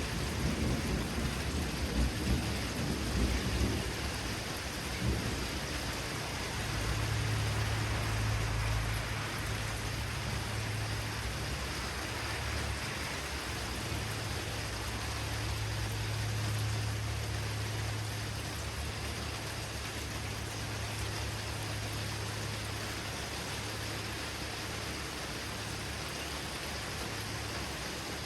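Steady rain falling during a thunderstorm, with a rumble of thunder dying away over the first few seconds. A low steady drone runs under the rain from about six seconds in.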